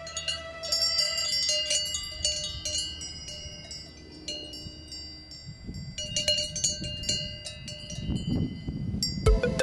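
Alpine cowbells on resting cattle clanking at irregular moments, each strike ringing on. A low rumbling noise comes up in the second half, and music with a steady beat begins near the end.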